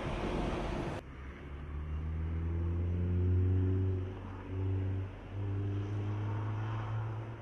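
About a second of wind rush, then a Mercedes-Benz Tourismo coach's diesel engine pulling as the coach approaches, its low note rising, dipping briefly twice, and running on.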